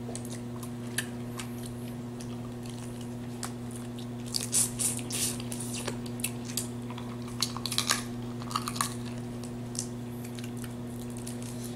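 Boiled crawfish being peeled and eaten up close: shells cracking, sucking and chewing in short clicks and crackles, thickest from about four to nine seconds in. A steady low electrical-sounding hum runs underneath.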